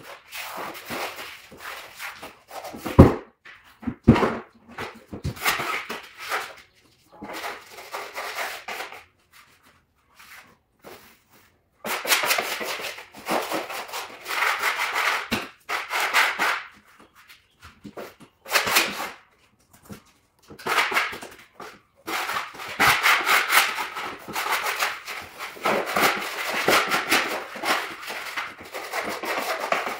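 Wallpaper being pressed and smoothed onto a wall by hand: bursts of paper rubbing and rustling against the wall, with short pauses between strokes. Two sharp knocks come about three and four seconds in.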